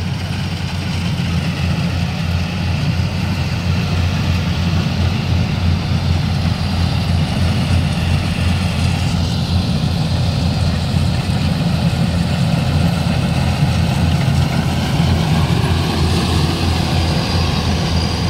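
Kubota rice combine harvesters running steadily under load while cutting standing rice, a loud, even diesel engine sound with a strong low hum.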